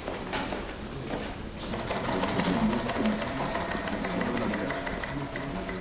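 Rapid, regular mechanical clicking, like office machinery clattering, over a steady background.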